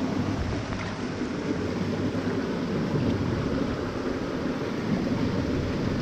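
Water of a small stream rushing over rocks close by, a steady, even noise.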